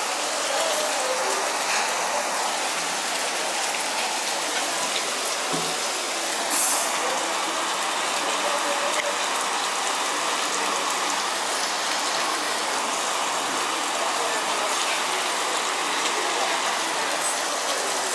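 Torrential tropical rain pouring down steadily, a dense, even hiss of heavy rainfall.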